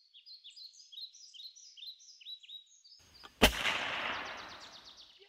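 Small birds chirping rapidly, then about three and a half seconds in a single shot from a .308 AirForce Texan big-bore air rifle fitted with a DonnyFL Emperor suppressor: one sharp crack with a fading tail.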